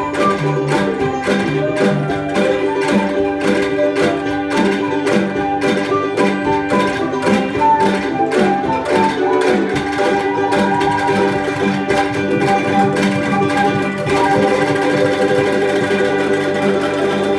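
Angklung ensemble playing a melody with a steady beat: many pitched notes rung together at once.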